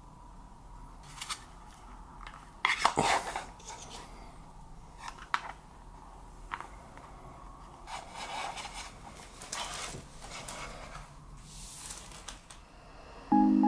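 Hands handling an anime figure's packaging: scattered sharp clicks and taps with short stretches of rustling, the loudest a cluster of clicks and rustle about three seconds in. Music begins just before the end.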